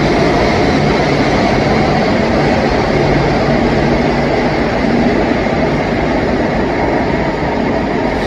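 Rodalies electric commuter train pulling out along an underground platform: a loud, steady rumble of wheels on rail with a steady motor hum. It cuts off suddenly near the end.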